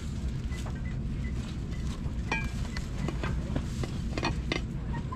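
Glazed ceramic plates clinking and knocking against one another as they are handled and lifted from a stack: a series of light, sharp clicks, with one short ringing note about two seconds in, over a steady low rumble of background noise.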